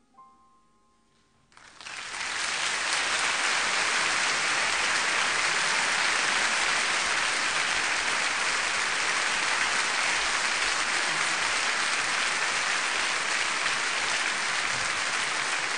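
Crowd applauding steadily, starting about a second and a half in just after the last note of music dies away.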